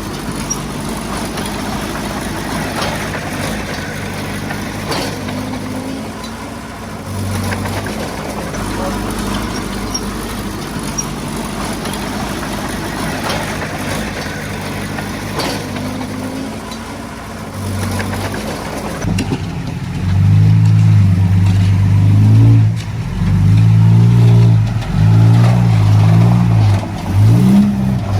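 Heavy diesel earthmoving machinery engine running steadily. About twenty seconds in, a much louder sound in short broken phrases with shifting pitch comes in, fitting a nearby voice.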